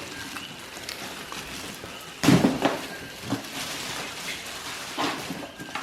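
Handling noise from a plastic coffee maker and its packaging being lifted and turned over: scattered knocks and rustles, the loudest a short clatter a little over two seconds in.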